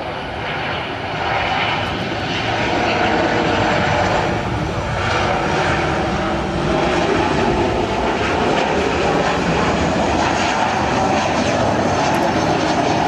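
Twin CFM56-7B jet engines of a Boeing 737-800 airliner on landing approach with its gear down, growing louder over the first second or two as it nears, then holding steady.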